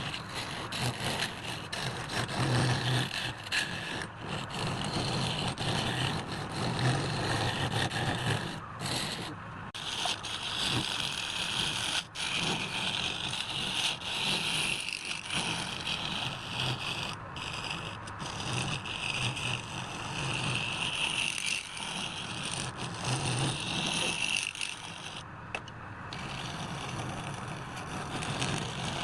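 Power woodworking tool running and cutting wood: a steady motor hum under harsh scraping hiss, broken by several sudden cuts.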